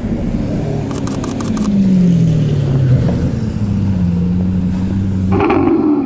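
Maserati GranTurismo V8 engine running, with a short rapid rattle about a second in. Its revs then drop and hold steady at a lower pitch.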